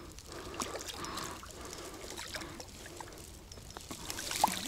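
Water splashing and trickling as a lively trout is landed by hand at the water's edge, with small clicks and rustles and a brief squeak near the end.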